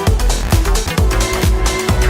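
Electronic dance music with a pounding kick drum about twice a second and sustained synth chords.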